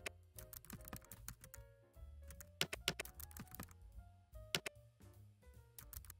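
Typing on a computer keyboard, with irregular clicking keystrokes over quiet background music.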